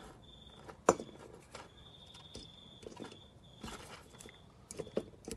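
Light clicks of multimeter test probes touching the metal terminals of a fuse box during a continuity check, with a faint high beep coming and going in short pieces between them.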